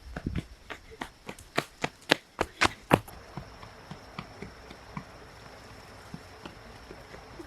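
A quick series of sharp knocks, about three or four a second, for the first three seconds, the loudest at the end of the run; then only scattered faint ticks over a steady high tone.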